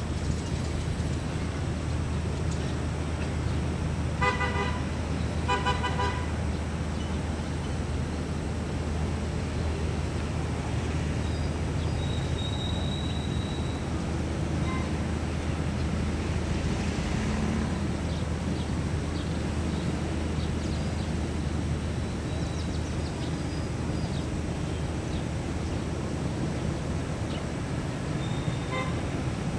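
A vehicle horn honks in two short, rapidly beeping bursts about four and six seconds in, over a steady low engine drone and general street hum.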